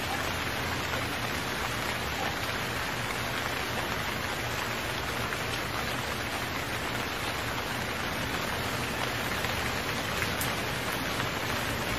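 Heavy rain pouring steadily, an even dense hiss of falling drops that neither swells nor eases.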